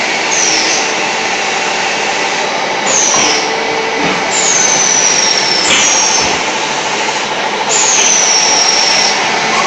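Terrazzo tile-making plant machinery running with a loud, steady mechanical din. A high squeal that falls slightly in pitch cuts through it five times.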